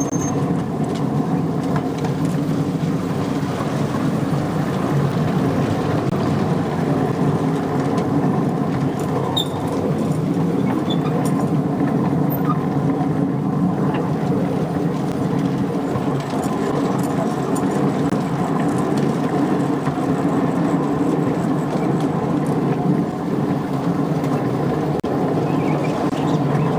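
7¼ inch gauge miniature railway train running along its track with passengers aboard: a steady, unbroken drone of the locomotive and wheels.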